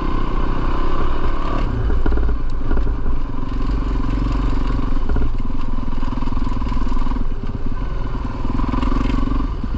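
450cc four-stroke single-cylinder dirt bike engine running at low to moderate revs, the throttle opening and easing off every second or two, with a few short knocks.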